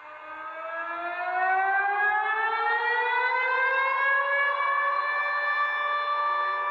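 Civil defence siren of a Russian emergency alert winding up: one long wail that rises in pitch and loudness over the first few seconds, then holds a steady tone.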